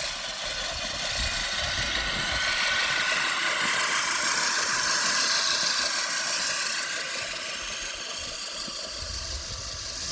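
Lawnmower engine running steadily with some rattle, growing louder toward the middle and easing off again as the mower passes close and moves away.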